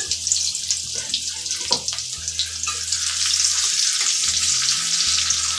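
Sliced onion frying in hot soybean oil with whole cumin seeds in a kadai: a steady crackling sizzle, stirred with a spatula.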